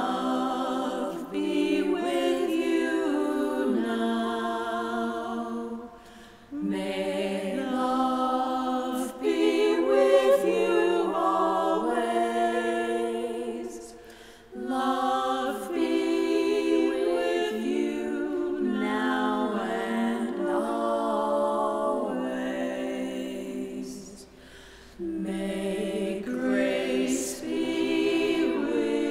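Two women singing together a cappella, a slow song in long phrases with three short pauses between them.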